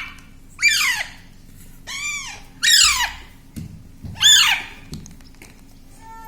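Baby parrot giving four harsh, screechy begging calls, each about half a second long and arching up then down in pitch, typical of a hungry chick at feeding time.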